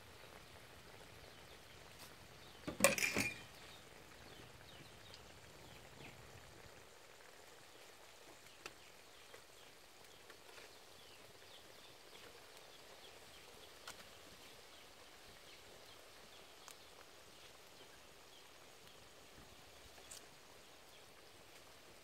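Quiet rural outdoor ambience with faint, scattered high chirps. A brief burst of louder rustling noise about three seconds in.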